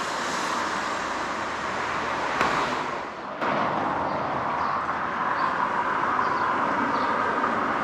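Steady outdoor street ambience, a hiss of distant traffic. It dips and then jumps back abruptly about three seconds in, where the recording is cut.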